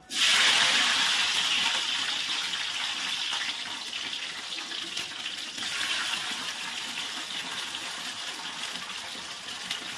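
Green chillies sizzling in hot oil in an iron kadai on a low flame. The hiss starts loud and sudden as they hit the oil, then gradually settles.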